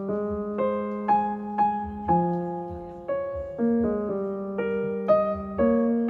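Background music: a piano playing a gentle melody in evenly spaced notes, about two a second, over held bass notes.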